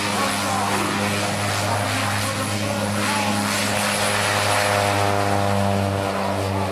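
Pacific Aerospace PAC 750XL's Pratt & Whitney Canada PT6A turboprop at takeoff power during the takeoff run: a loud, steady propeller drone with a high turbine whine above it.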